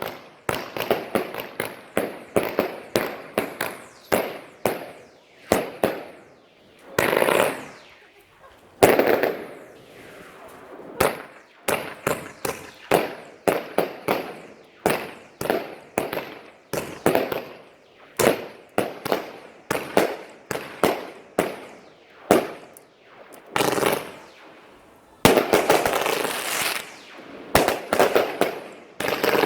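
Fireworks going off: a rapid series of sharp bangs, each trailing off in a fading echo. Stretches of dense crackling come about seven seconds in and again near the end.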